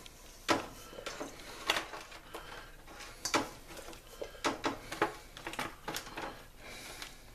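Shredded chicken tipped from a metal bowl into a disposable aluminium foil pan and spread by hand: irregular light clicks, taps and crinkles of the foil pan and bowl.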